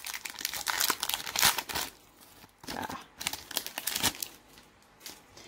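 Foil wrapper of a Pokémon TCG Unbroken Bonds booster pack crinkling and tearing as it is opened by hand. The crackling comes in two spells, with a short pause about two seconds in, and dies down to faint rustling after about four seconds.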